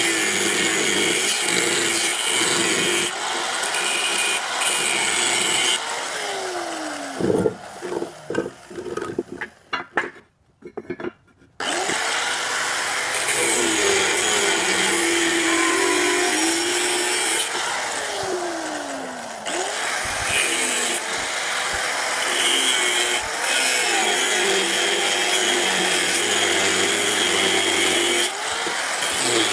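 Handheld angle grinder with a thin abrasive disc cutting and grinding a flat steel bar: a steady, loud, hissing grind over the motor's whine. About seven seconds in the cutting stops and the whine falls away, going nearly silent for a second or so around ten seconds, then the grinder bites into the steel again about twelve seconds in and grinds on steadily.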